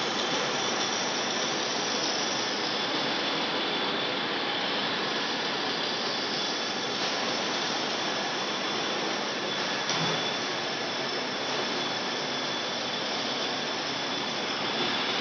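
Metal lathe running, its tool cutting a large spinning workpiece under a coolant spray: a steady machining noise with a faint high whine.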